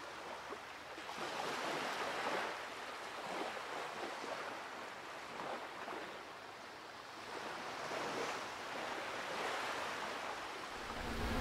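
Ocean surf: waves washing in and drawing back, a soft rushing noise that swells and fades several times.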